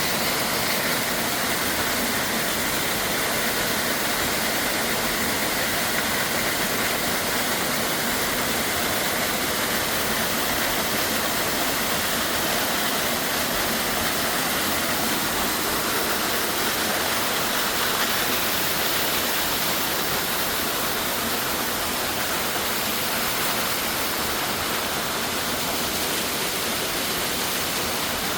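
Rushing water, a steady, even roar with no breaks.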